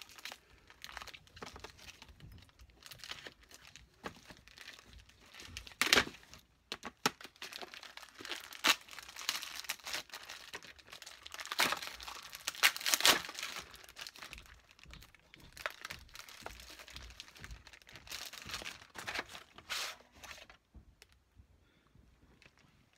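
Clear plastic wrapping being torn and peeled off a packaged tape, crinkling and crackling in irregular bursts, loudest about six seconds in and again around twelve to thirteen seconds.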